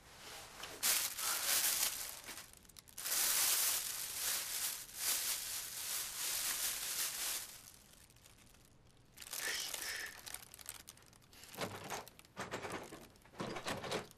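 Plastic carrier bag crinkling and rustling as it is handled and opened, in two long stretches, followed by lighter scattered rustles and clicks near the end.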